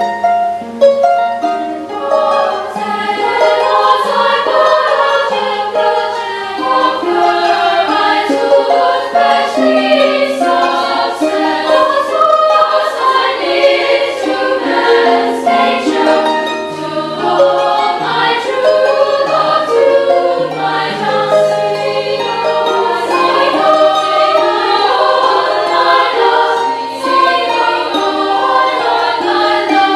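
Girls' choir singing in parts with pedal harp accompaniment; harp notes stand out near the start under the voices.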